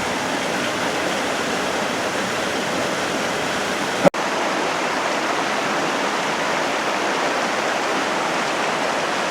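Steady rush of fast-flowing water, the Gunnison River or falls below the dam, as an even hiss; the sound drops out for a split second about four seconds in.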